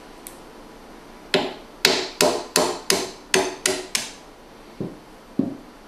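Claw hammer tapping a small brass punch to drive the handle peg out of a katana's grip: eight sharp metallic taps at about three a second, then two softer knocks near the end.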